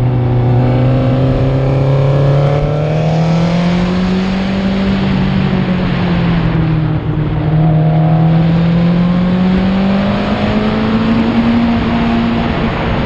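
Racing sidecar outfit's engine heard from on board, pulling hard. The revs climb, dip briefly about seven seconds in, then climb again and ease off near the end.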